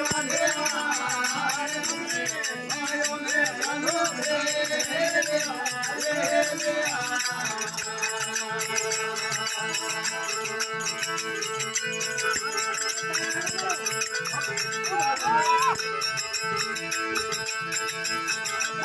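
Rajasthani folk bhajan music: a gliding melody over a steady drone for the first several seconds, then mostly held drone tones, with a constant fast jingling rattle beat throughout.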